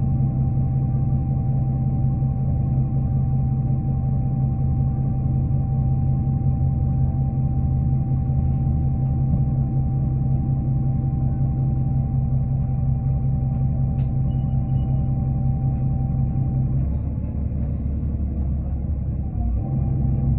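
Diesel engine and drivetrain of a New Flyer D40LF city bus heard from inside while under way: a steady low drone with a thin whine over it. The note eases off about three-quarters of the way through, then picks up again near the end.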